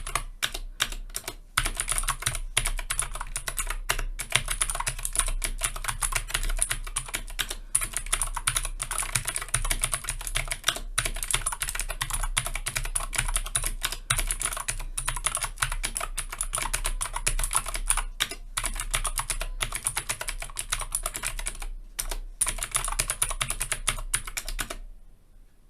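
Fast continuous typing on a Keychron K6 mechanical keyboard with clicky blue switches, a dense run of sharp high clicks with a few brief pauses, stopping about a second before the end.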